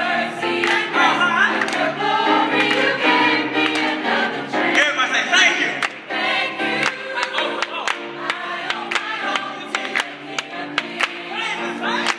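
Mixed gospel choir of men and women singing in parts. From about halfway through, hand claps keep the beat.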